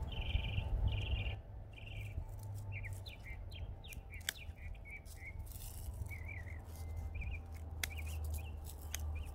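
Small songbirds chirping and twittering over a low steady rumble, with a few sharp snips of hand pruners cutting rose canes.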